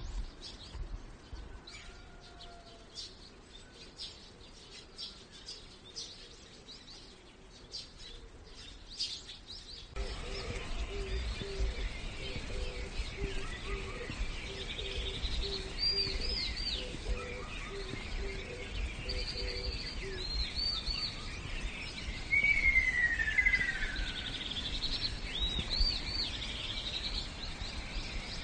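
Small birds chirping and singing in quick high notes. About ten seconds in the sound changes abruptly to a louder recording with a low rumble, a short low note repeated for several seconds, and birdsong of arched high phrases with one clear whistle sliding downward.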